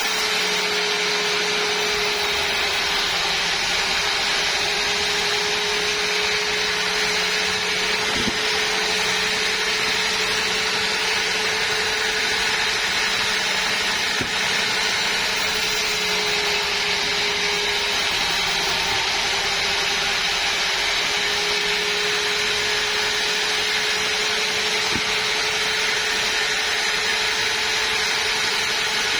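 Sawmill saw running steadily through a rosewood log: a continuous mid-pitched hum under a high, hissing cutting noise.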